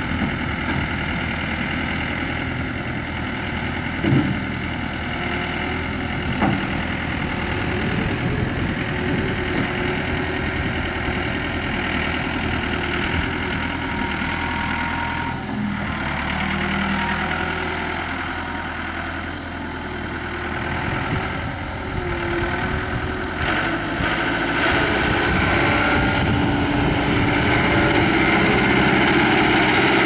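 Mustang 2109 skid-steer loader's diesel engine running steadily as the machine drives and turns, with two sharp clunks about four and six seconds in. Near the end the engine speeds up and grows louder, with a rising whine.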